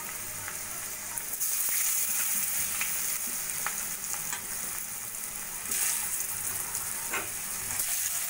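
Raw potato wedges sizzling as they fry in hot oil in a wok, a steady high hiss. It gets louder about a second and a half in and again near six seconds, as more wedges go into the oil, with a few faint clicks.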